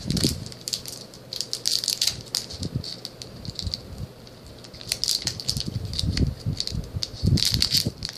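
Foil booster-pack wrapper crinkling and rattling in uneven bursts as it is handled and torn open.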